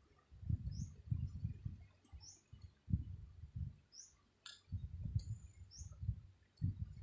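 Short, high, rising chirps from a small bird, about one every second and a half, over louder, irregular low rumbles, with a single sharp click about four and a half seconds in.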